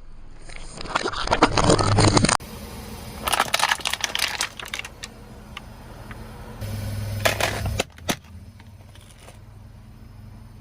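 Objects crunching and cracking under a car's tyre: a dense run of crackling snaps that cuts off abruptly after about two seconds, then shorter crunching bursts around four seconds and seven seconds in, and a single sharp crack near eight seconds.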